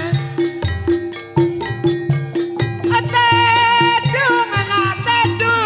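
Live band music: a steady drum beat with a rattling shaker, and a held, wavering melody line coming in about halfway through.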